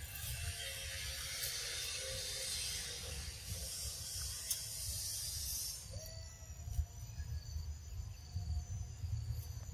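Forest insect chorus: a dense, high buzzing that stops about six seconds in, leaving thinner, steady high insect trilling, over a low rumble.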